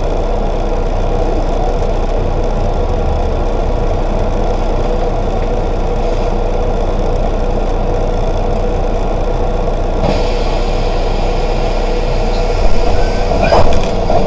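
Volvo 8900LE city bus running steadily, a constant engine and road hum, with two brief louder knocks or rattles near the end.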